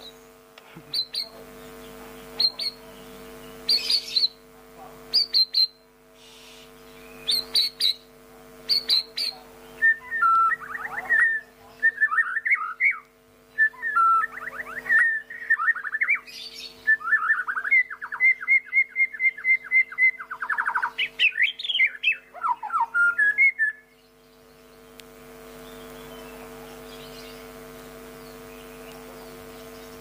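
Bornean white-rumped shama singing. It gives a few short, high notes spaced a second or so apart, then from about ten seconds in a rich run of varied whistles and fast trills, which stops a few seconds before the end.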